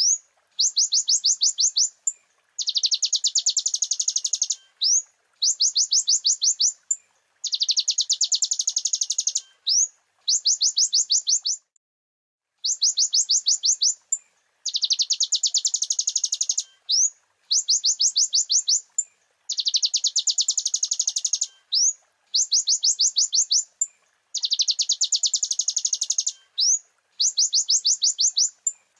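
Kolibri ninja (konin) sunbird song from a masteran recording: rapid high trills in phrases about a second and a half long, alternating dense buzzy runs with rows of quick separate notes, repeated over and over with short gaps.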